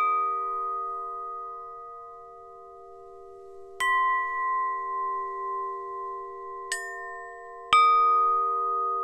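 Slow credits music of struck bell-like tones, each left to ring on for several seconds. A note rings out from a strike just before the start, a new strike comes about four seconds in, a faint one near seven seconds, and another near eight.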